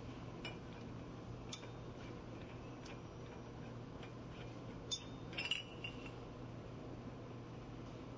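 Small clicks and metallic clinks of the TLV SF1's metal separator and filter element being handled as they are pulled from the housing, with a sharper clink and a brief ring of metal on metal about five seconds in, over a steady low hum.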